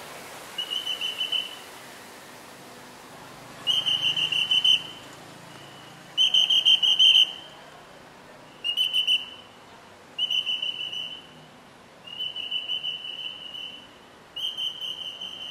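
A whistle blown in seven short, trilling blasts, one every second or two, each on one steady high pitch.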